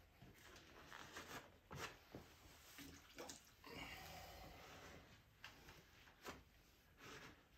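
Faint wet rubbing of a gloved hand smoothing rubberized mastic sealer over a canoe's canvas, with scattered light clicks and taps.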